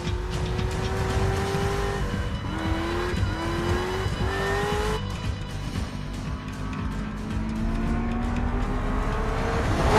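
Car engine accelerating hard, its pitch climbing, dropping back at quick gear changes several times in the first half, then climbing slowly and steadily through the second half.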